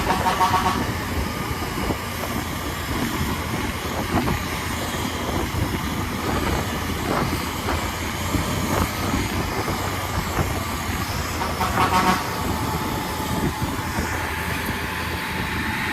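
Intercity bus running with a steady rumble of engine and road noise, with two short multi-tone horn toots, one right at the start and one about twelve seconds in.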